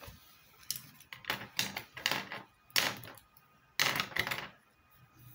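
A sheet of lined paper being handled and slid across a desk: a series of short papery rustles, about half a dozen, from about one to four and a half seconds in.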